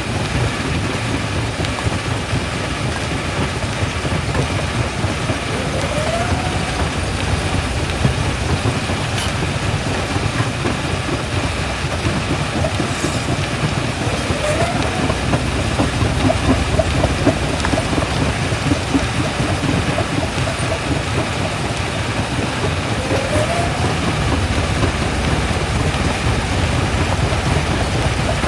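Primary jaw crusher running and crushing rock: a steady heavy mechanical rumble and grinding. A short rising squeal recurs about every eight or nine seconds.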